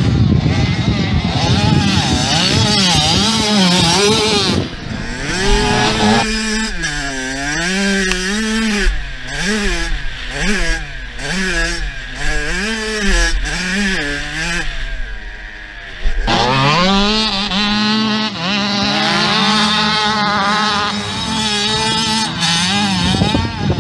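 Kawasaki KX 85 single-cylinder two-stroke motocross bike being ridden hard, its engine revving up and dropping back about once a second through gear changes and jumps. From about six to sixteen seconds in, the engine is heard close up from on board the bike and sounds duller and narrower.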